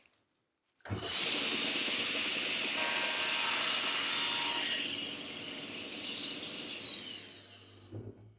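Sliding table saw's 250 mm, 72-tooth Woodwork 37.250.72 crosscut blade cutting across a painted larch board. The sound sets in suddenly about a second in as a soft, rustling cut with a high whine through the middle, then dies away near the end as the board clears the blade.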